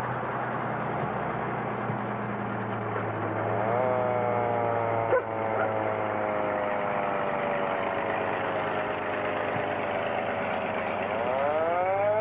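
A 1954 fire engine pumper running with a steady low hum while its mechanical siren winds up about four seconds in, slowly winds down, then winds up again near the end. A single sharp knock comes about five seconds in.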